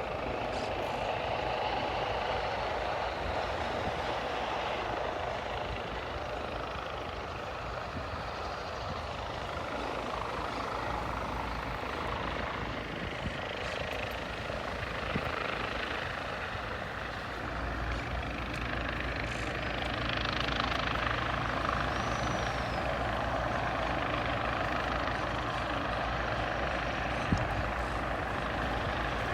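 Aircraft engine noise running steadily, swelling louder about twenty seconds in.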